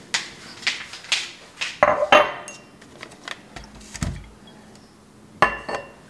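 A glass tonic-water bottle, a tall ribbed drinking glass and a boxed gin bottle being handled and set down on a kitchen countertop: a series of irregular knocks and clinks, some with a short glassy ring.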